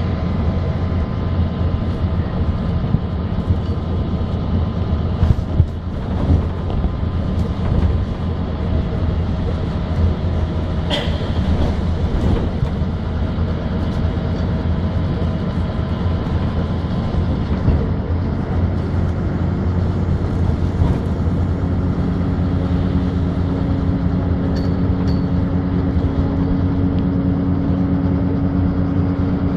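City bus engine running as the bus drives, heard from inside the passenger cabin, with a few sharp knocks and rattles from the body. A new steady, deeper engine tone comes in about two-thirds of the way through.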